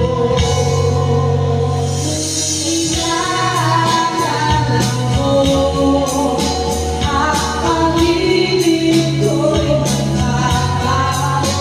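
A woman singing into a microphone over backing music with a steady beat and a tambourine-like jingle, in long held notes.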